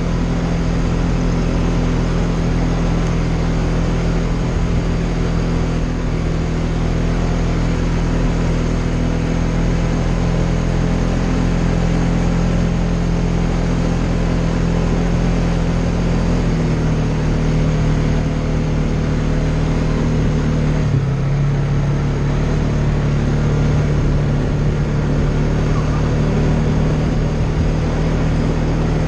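Polaris Sportsman ATV engine running steadily under way, its note shifting a little twice in the second half.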